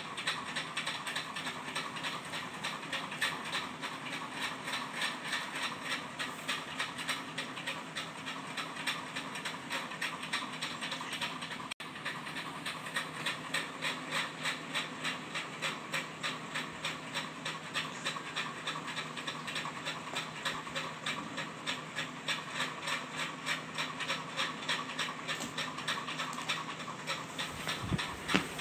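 Pomeranian puppy panting steadily in a quick, even rhythm.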